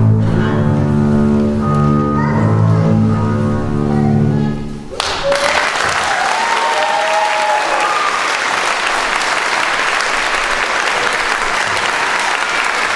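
A trio of double basses playing a bowed passage that ends abruptly about five seconds in, followed by steady audience applause.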